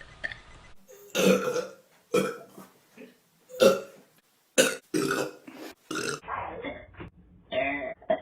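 A girl burping loudly, about seven separate burps in a row, each under a second long, the last few quieter.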